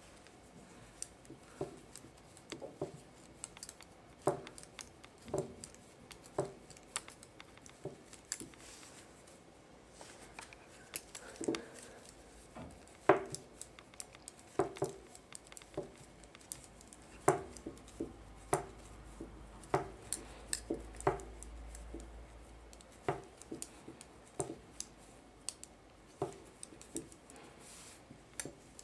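Knitting needles clicking against each other as stitches are worked, sharp irregular ticks about one or two a second.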